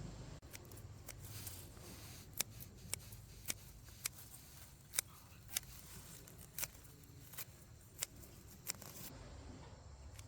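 A run of about ten short, sharp snips or clicks at an uneven pace, roughly one or two a second, over a faint low background hum.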